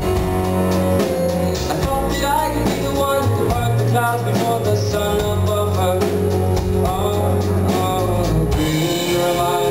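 Live band performance heard from the audience: a male singer sings over his own keyboard playing, with drums keeping the beat.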